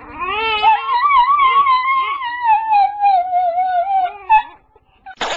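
A dog howling: one long howl of about four seconds that slowly falls in pitch, then stops. A short, sudden cry follows near the end.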